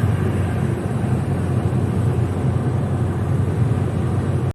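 Steady road and running noise of a Daewoo Nexia driving at highway speed, a low, even drone without any squeak or knock.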